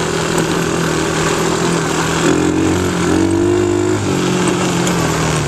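Small ATV engine running under way, its pitch rising and falling as the throttle changes, over a steady hiss of wind and riding noise.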